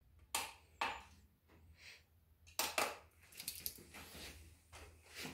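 Light scattered clicks and knocks from handling a digital BESS edge-sharpness tester and a knife on a wooden table: buttons pressed on the tester, then the blade brought down onto the tester's test-media clamp.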